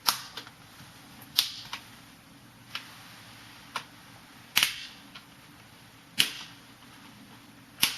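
Sharp plastic clicks and snaps, seven or eight of them at uneven intervals, as the front bezel of a Lenovo G470 laptop screen is pried off and its retaining clips release.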